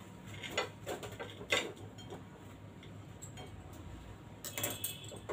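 Table knife cutting and scraping through a crisp toasted sandwich on a ceramic plate: several crunchy scrapes and clicks in the first couple of seconds, then a brief clatter near the end.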